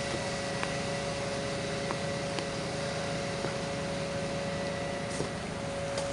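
Steady machine hum and hiss at an even level, with a constant tone and a few faint clicks.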